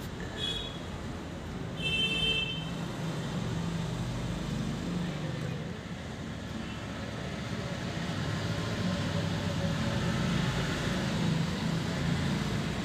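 Steady low background traffic noise, with short high-pitched tones just after the start and again about two seconds in.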